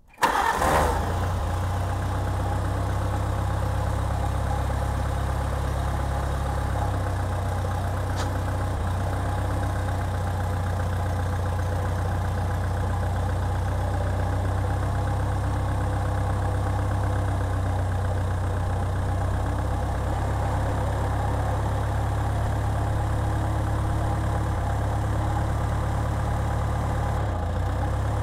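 Farmall Cub tractor's small four-cylinder petrol engine running steadily, with an even, low drone.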